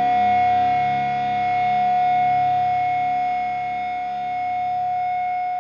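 Closing of a rock song: one long, steady, high held note over lower notes that shift beneath it, with distorted guitar just before.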